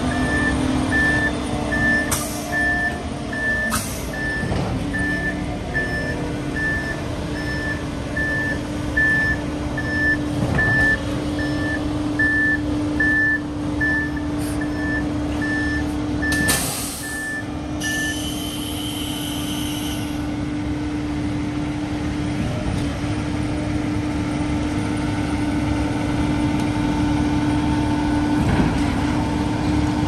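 Concrete mixer truck reversing: its backup alarm beeps about once a second over the running diesel engine and a steady hum, with a few short air-brake hisses. The beeping stops about 18 seconds in and the engine runs on.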